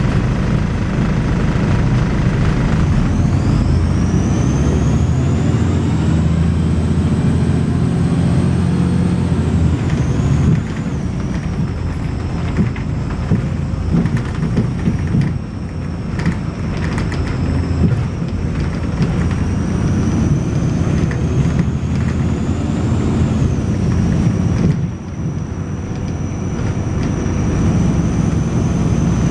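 A Volvo B6LE bus's diesel engine thrashing under way, heard from on board, with a strange high-pitched whine above it. The whine climbs steadily over the first several seconds, drops sharply about a third of the way in, then holds steady before rising and falling back again near the end.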